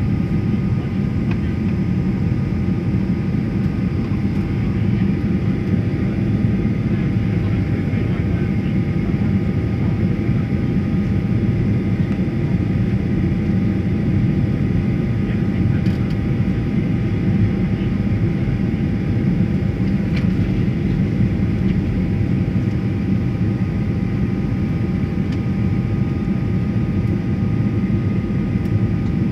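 Steady cabin noise inside a jet airliner descending to land: a low, even roar of the engines and airflow, with faint steady whining tones above it.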